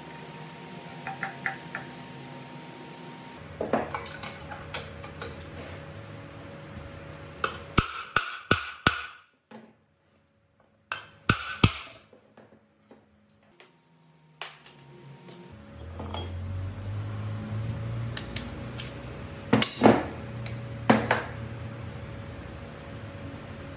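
Claw hammer striking metal on a Honda GX120 engine under repair: clusters of quick, sharp metallic blows. The heaviest run of about five blows comes about eight seconds in, with more a few seconds later and three near the end, and lighter clinks of tools and parts in between.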